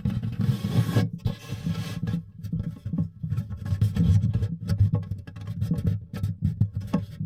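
Hands handling and scraping on a Taylor GS Mini acoustic guitar, making irregular rubbing and knocking through its hollow wooden body. The strings sound faintly as the guitar is moved.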